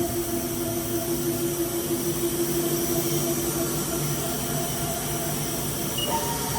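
Steady mechanical hum with several steady tones held underneath. A brief higher tone sounds near the end.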